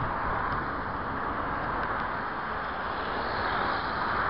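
Steady rushing noise of road traffic, swelling slightly near the end, with no engine note or sharp knocks in it.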